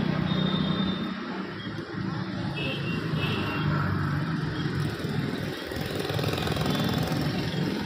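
A motor vehicle engine running steadily, a low even hum, with a few faint high squeaks over it.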